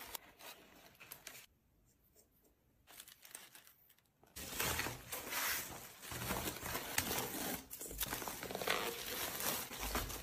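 Faint rustling, then a near-quiet pause, then from about four seconds in steady crinkling and crackling of a white plastic padded mailer being handled and folded.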